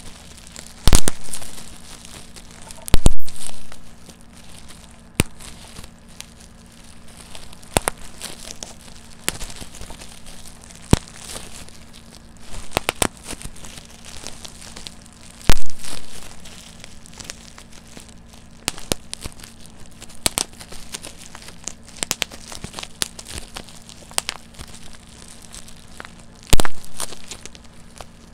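Bubble wrap being popped by hand: sharp pops at irregular intervals, four of them much louder than the rest, amid the crinkling of the plastic sheet as it is twisted and squeezed.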